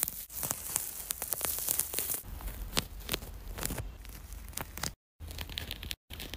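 Mandarin orange peel and white pith being torn and picked away with metal tweezers: a dense run of small crisp crackles and tearing. It breaks off for two short moments of silence about five and six seconds in.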